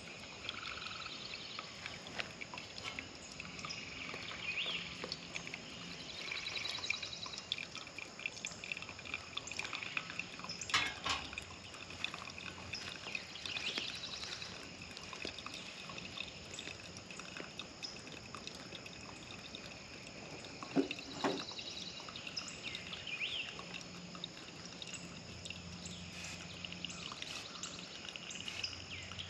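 Birds chirping and calling in a forest, with a faint trickle of coffee dripping through a pour-over dripper. A few sharp knocks, the loudest about 21 seconds in.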